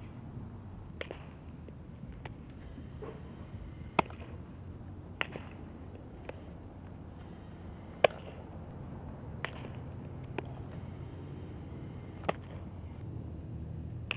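Sharp, single pops of a softball being hit and caught in fielding practice, about eight of them spaced a second or two apart. The loudest comes about eight seconds in.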